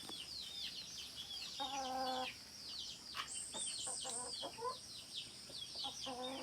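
A hen calling: one drawn-out note about two seconds in, a run of short rising clucks around four seconds in, and another long note starting near the end. Constant high peeping of many small birds runs underneath.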